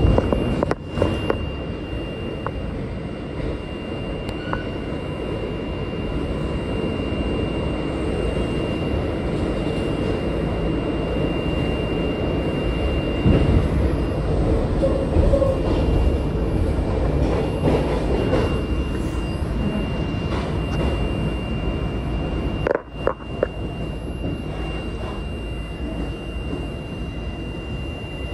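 New York City subway train running, a steady low rumble of wheels and motors with a thin steady high-pitched tone above it. There are two brief dropouts, one about a second in and one near the end.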